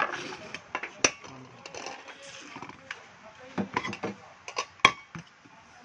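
Metal clinks and knocks from a pressure cooker being handled, with two sharp knocks, one about a second in and one near the end.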